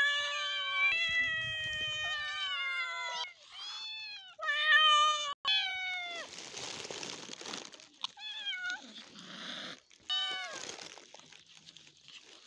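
Several young domestic cats meowing loudly and insistently, begging for food. One long, drawn-out meow is followed by a string of shorter meows from different cats.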